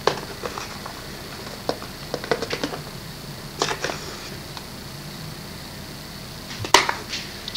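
Light clicks and taps of a spoon against a mixing bowl and other utensils being handled, with a quick run of taps in the middle and a louder knock near the end, over a steady faint hum with a thin high whine.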